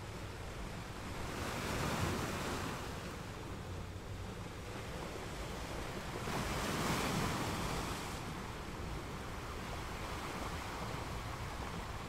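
Waves crashing: a steady wash of surf with two larger waves breaking, the first about two seconds in and a longer one around the middle.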